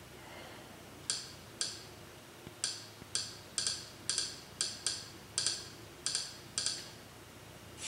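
Kodi media-centre menu navigation sound effect: about a dozen short, bright clicks, irregularly spaced at roughly two a second, one for each step as the cover-art list is scrolled.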